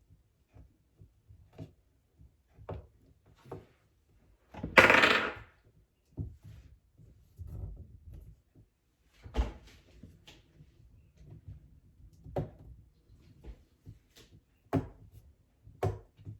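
Scattered clicks and knocks of a cabinet knob and its screw being fitted by hand against a wooden cabinet door, with one louder rustle lasting under a second about five seconds in.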